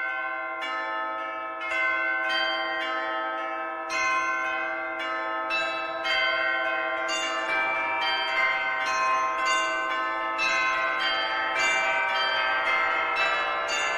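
Bells struck one after another in a steady peal, each note ringing on and overlapping the next, the sound growing fuller and a little louder as it goes.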